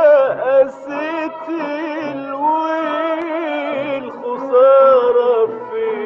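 Arabic music recording playing: a melody of held, wavering notes over a steady lower line.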